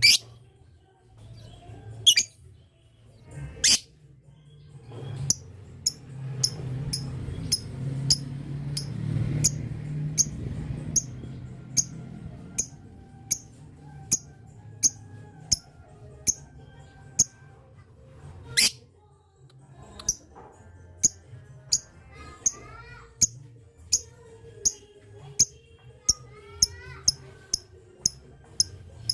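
Lovebird doing its long "ngetik" (typing) call: a steady run of short, sharp, very high chirps, about two a second, with a few gliding whistled notes mixed in near the end. A low hum runs underneath.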